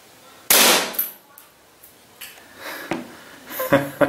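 APS ACP Glock-type CO2 gas-blowback airsoft pistol firing a single shot about half a second in: a sharp report that dies away over about half a second. A smaller sharp knock follows about half a second after it.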